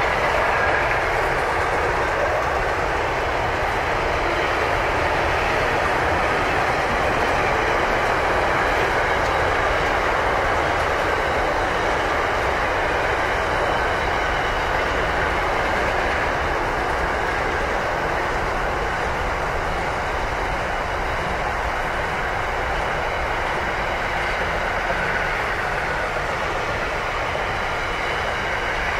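Freight train wagons, refrigerated vans and container flats, rolling steadily past over a low concrete bridge: a continuous rumble and rush of steel wheels on rail.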